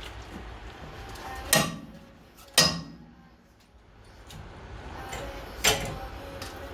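Three sharp metal clanks from tools striking metal during brake work, each ringing briefly: two about a second apart, then one more some three seconds later.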